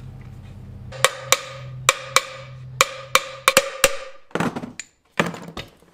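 Hammer striking a steel driver to seat an output shaft bearing race into a Dana 20 transfer case: about nine sharp metallic strikes over three seconds, each with a short ring. Two duller knocks follow near the end.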